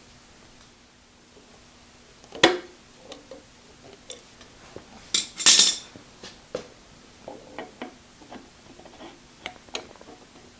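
Metal parts of a drill-press drive being handled and fitted: scattered clinks and knocks of metal on metal, with a sharp clack about two and a half seconds in, a louder double clatter a little after five seconds, and lighter clicks after that.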